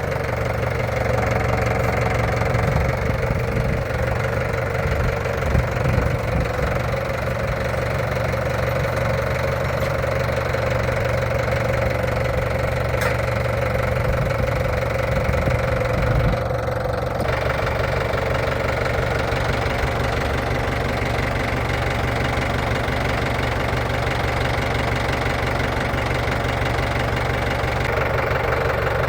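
Jeep engine running steadily at low revs, its note shifting slightly about seventeen seconds in.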